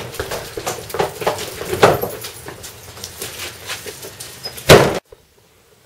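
Hurried footsteps of people running, then a door slammed shut near the end with one heavy bang, after which the sound cuts off abruptly.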